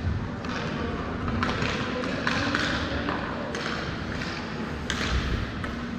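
Ice hockey play: skate blades scraping the ice and sticks and puck clacking, several sharp strokes about a second apart over steady rink noise.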